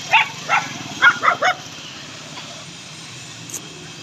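A dog barking, five short sharp barks in quick succession in the first second and a half, then it stops.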